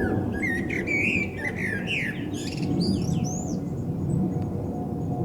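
Eurasian blackbird singing: a run of quick, high twittering and squeaky notes that stops about three and a half seconds in, over a steady low background rumble.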